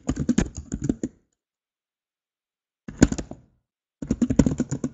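Typing on a computer keyboard: rapid runs of key clicks that drop out to complete silence for almost two seconds, then a short burst and more fast typing near the end.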